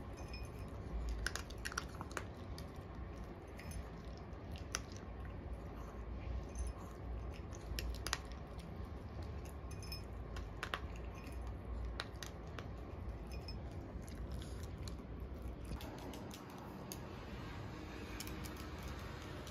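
Pomeranian eating dry kibble from a bowl: irregular crunching and sharp clicks of the food in the bowl, stopping about 16 seconds in, after which only a low hum remains.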